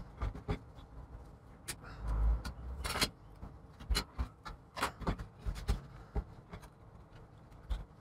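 Irregular small clicks, taps and knocks of tools and parts being handled and set down on a workbench, with a duller thump about two seconds in.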